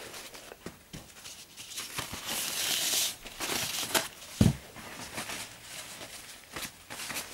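Tissue paper rustling and crinkling as it is handled, with scattered light clicks and one dull thump about four seconds in.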